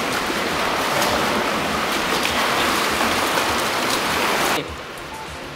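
Whirlpool tub's jets churning the water, a steady loud rushing and bubbling that cuts off about four and a half seconds in, leaving quieter indoor pool background.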